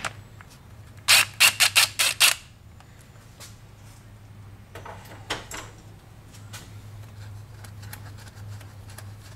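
A hand ratchet with an extension and socket working a bolt on an engine's aluminium intake cover plate: a quick run of about six sharp metallic clicks a second in, then a few fainter clicks and knocks later on. A steady low hum sits underneath.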